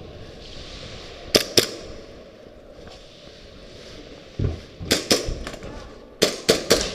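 Airsoft guns firing semi-auto shots: two sharp cracks about a second and a half in, then a thump and two more shots around five seconds, and a quicker string of four or five shots near the end.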